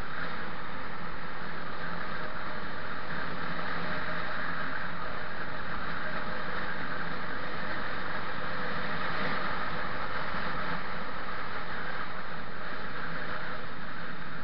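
Steady rushing noise of a vehicle on the move, heard from on board, with a faint steady engine hum underneath.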